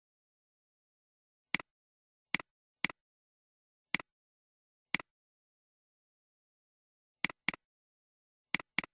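Computer mouse button clicks, each a sharp press-and-release pair. There are nine at uneven intervals, with two quick double-clicks in the last couple of seconds.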